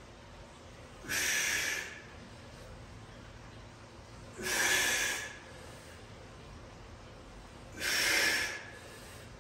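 A man's forceful breaths while doing stability-ball rollouts: three sharp breaths, each under a second long, about three and a half seconds apart, one with each repetition.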